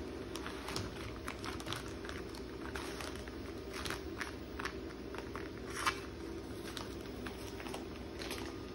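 A paper sheet crinkling and rustling as hands rub and smooth a vinyl stencil down onto a wooden clock face, with irregular small crackles and one sharper crackle about six seconds in.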